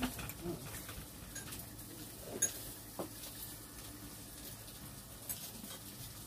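Faint clinks and taps of chopsticks and dishes at a dinner table: a few separate knocks, the sharpest about two and a half seconds in, over a steady low hum.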